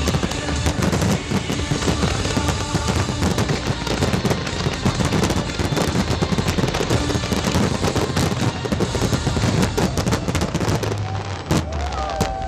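Fireworks display: many aerial shells bursting together in a dense, continuous crackling and popping, with music playing underneath.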